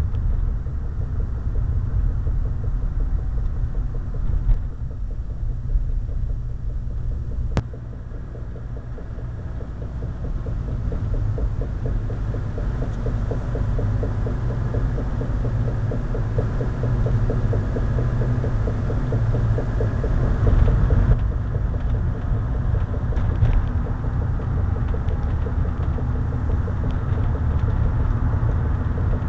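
Car driving with a low rumble and a fast, repeating knock, clearest in the middle stretch, from a road wheel that was not properly done up and wobbles as it turns.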